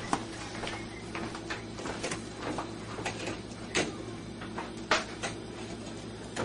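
A baguette knocking and rattling against a low wooden kitchen shelf as a small dog tugs and twists it, gripping it in its mouth. The knocks are irregular, with two sharper ones in the second half.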